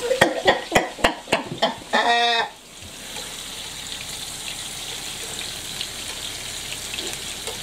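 Sweetcorn and courgette fritters sizzling steadily in hot oil and butter in a frying pan. The first two seconds or so hold a short burst of laughter.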